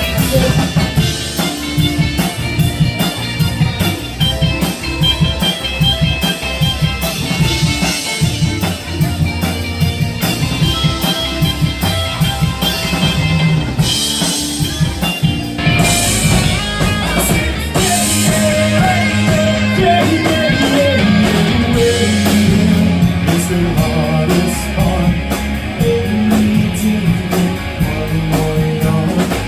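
Rock band playing an instrumental passage, with a drum kit keeping a steady beat under electric guitar.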